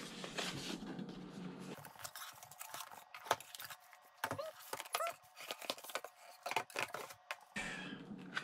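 Paperboard packaging being handled: a white cardboard box opened and an inner box pulled out, with scattered taps, scrapes and rustles of card sliding against card.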